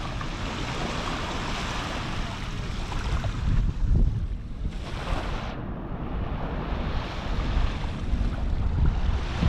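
Small waves washing on a sandy beach, with wind buffeting the microphone in a steady low rumble.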